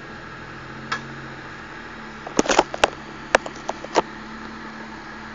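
A 4x4 SUV's engine running steadily at low revs as it crawls over a rocky trail. About a second in there is one sharp click, and near the middle comes a quick cluster of sharp knocks and clacks.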